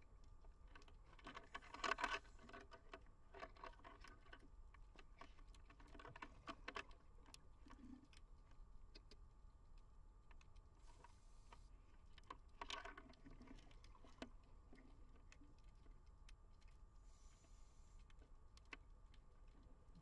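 Faint underwater crackle of a scuba diver's regulator breathing: soft bursts of bubbling clicks on the exhale, three times, with short faint hisses between.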